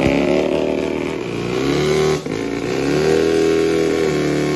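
Cab-over van's engine revving on a chassis dyno, the pitch climbing, dipping briefly about two seconds in, climbing again, then dropping back and holding steady near the end.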